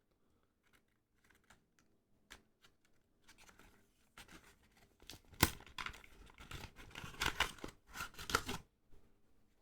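Paper card-pack packaging being torn open and crinkled by hand. A few light ticks come first, then several seconds of ripping and rustling, with the sharpest tear about five seconds in.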